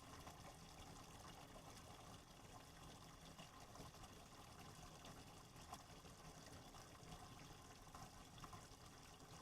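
Faint, steady trickle of tap water running into a sink, with a few small splashes.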